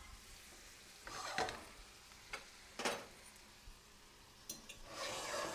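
Asparagus sizzling faintly in a frying pan while a utensil scrapes and clinks against the pan twice as the spears are moved.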